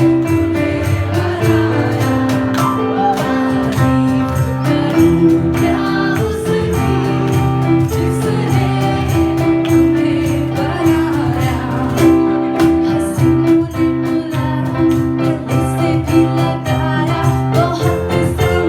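Loud playback of a retro Bollywood song: a singing voice over a steady beat with jingling percussion.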